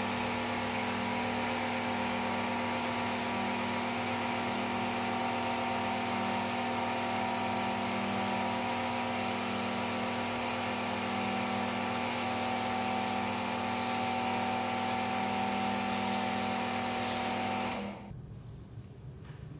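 Motorised rug-cleaning machine running steadily with a hum of several fixed pitches over a hiss, switched off abruptly near the end, leaving a much quieter low rumble.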